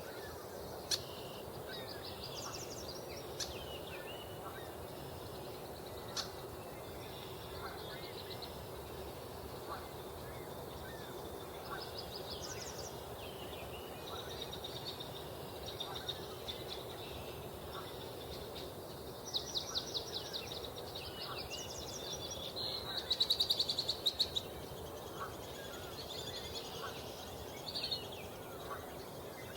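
Several small songbirds singing, with high trilling phrases repeating every few seconds and loudest about twenty-three seconds in, over a steady low background noise. Geese honk faintly now and then.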